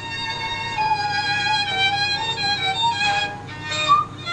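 Background music: a violin playing a melody in held notes.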